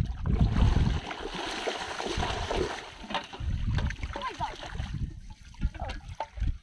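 Shallow water splashing and sloshing in uneven surges as someone wades through a flooded, weedy field, with scattered small splashes and clicks.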